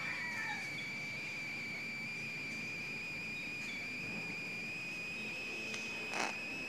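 Steady, unbroken high-pitched insect trill. A short burst of noise cuts in once, about six seconds in.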